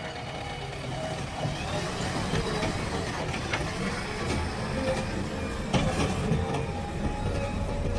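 Heavy machinery's diesel engine running steadily, with a few short knocks.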